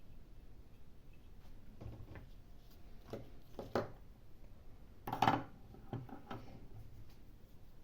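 A few light taps and clinks of small hand tools on a workbench, scattered and irregular, the loudest about five seconds in.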